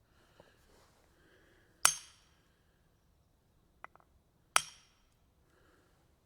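Maul striking a metal wedge twice, about two and a half seconds apart; each blow is a sharp metallic clink with a short ring. A few light taps come just before the second blow.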